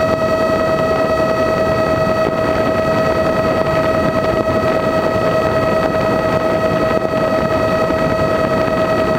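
RC blimp's propeller motors heard from the onboard camera, running at a steady high speed with a constant whine, over wind rush on the microphone.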